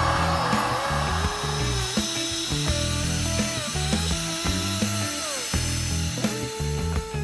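Background music with a bass line and a sliding, gliding melody. Under its opening second, the hiss of a heat gun's blower fades away.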